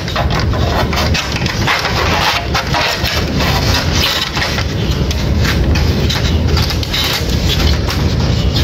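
Clicks and knocks of the plastic UPS casing and parts being handled and fitted back together, over a steady low rumble.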